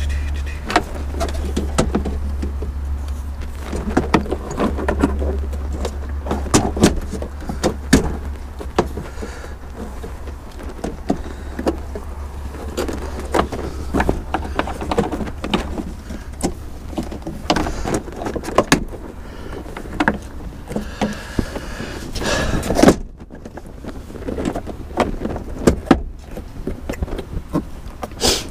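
Hard plastic clicks and knocks as the hybrid battery's cooling air duct is handled and pressed into place, over a steady low hum that stops about 23 seconds in.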